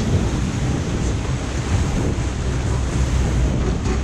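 Water rushing and spraying as a crocodile-shaped jet-ski boat of a Zierer Inno Heege ride is pulled fast through its water channel, with wind buffeting the microphone. The noise is steady, with no breaks.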